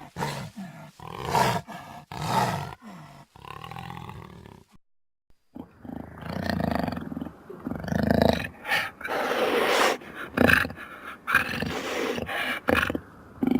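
Baryonyx dinosaur sound effects: a run of short growls and snarls, then, after a second of dead silence, longer and louder roars and growls, loudest a little past the middle.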